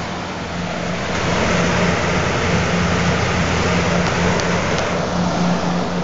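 Frigidaire 15,000 BTU window air conditioner running: its fan blows air with a steady rushing sound over a low hum. The rushing grows louder about a second in and eases back near the end.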